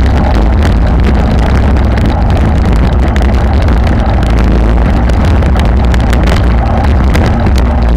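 Wind buffeting an action camera's microphone on a racing bicycle at about 40 km/h, with road-bike tyres rumbling over brick paving. A loud, steady roar, heaviest at the low end, with constant small knocks.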